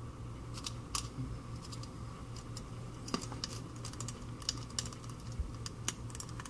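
Irregular small clicks and taps of a precision screwdriver driving a short screw into an iPhone 5c's internal bracket, over a low steady hum.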